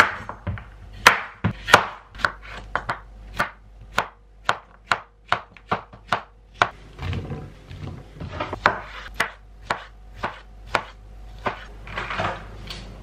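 A chef's knife chopping yellow courgettes on a wooden cutting board: a steady run of sharp knocks against the board, about two to three a second.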